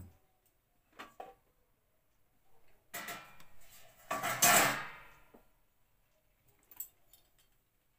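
Stainless steel kitchen utensils being handled: a couple of light clinks about a second in, then a longer scraping clatter between about three and five seconds in, which is the loudest part, and a faint click near the end.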